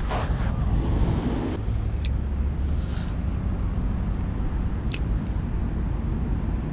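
Steady low outdoor rumble, with a hand brushing close to the microphone at the start and three short sharp clicks about two, three and five seconds in.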